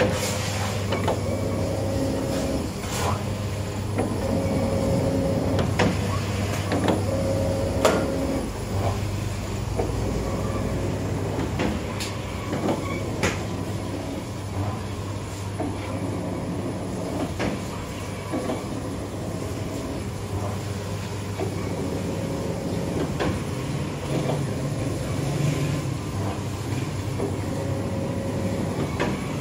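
Bakery dough machines running: a steady low motor hum with scattered clicks and knocks, and a short higher whine that comes and goes every few seconds.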